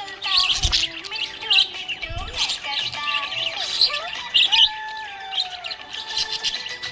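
Several budgerigars chirping and warbling at once: many quick high chirps over sliding whistled notes. There are two soft low thumps in the first couple of seconds.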